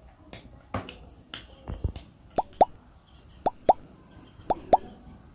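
Three evenly spaced pairs of quick pitched pops, like a 'bloop' sound effect, each pair about a second after the last. Before them come softer irregular clicks and a dull thump.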